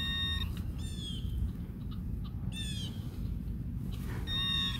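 A bird's short, falling whistled call, repeated three times about two seconds apart. A metal-detecting pinpointer's steady electronic tone is heard at the start and again near the end.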